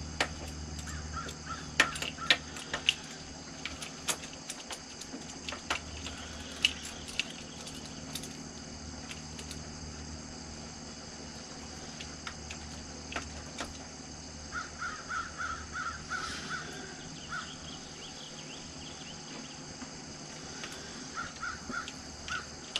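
Crows cawing in quick runs of calls, one run about two-thirds in and another near the end, over a steady high insect drone. Sharp clicks and knocks from a camera bike mount being fitted to a dirt-bike handlebar are loudest in the first few seconds.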